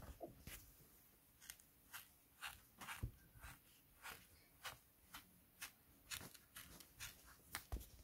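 Kinetic sand being poked with a small stick and pressed with fingers in a plastic tray: faint, short crunching ticks at irregular spacing, one or two a second, with a slightly louder one about three seconds in.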